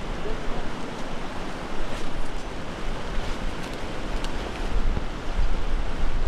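Steady rush of flowing creek water, with wind buffeting the microphone in uneven low rumbles.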